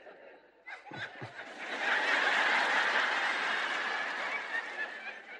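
A large audience laughing: a few scattered laughs at first, swelling into broad crowd laughter about two seconds in, then fading away near the end.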